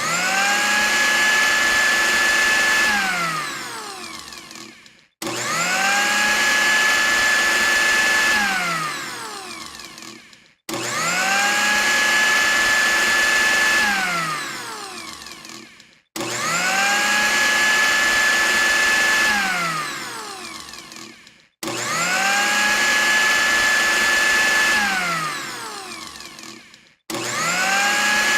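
Electric blender motor switched on and off over and over. Each run starts suddenly, whines up to full speed, runs steadily for about two and a half seconds, then winds down with a falling pitch. A new start comes about every five and a half seconds.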